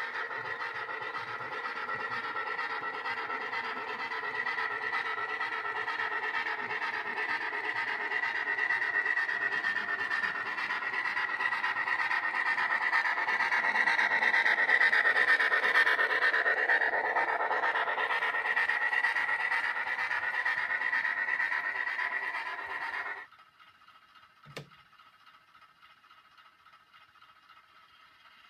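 H0-scale model trains running on the layout: a steady rolling and motor noise with a steady high tone, growing louder as a train of coaches passes in front. It cuts off suddenly near the end, leaving a faint hum and a single click.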